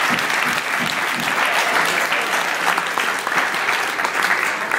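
A room of students applauding: dense, steady clapping.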